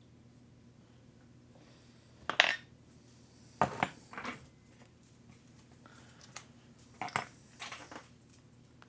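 Small metal tools and hardware clinking and clattering in a handful of irregular sharp knocks, the loudest about two and a half seconds in.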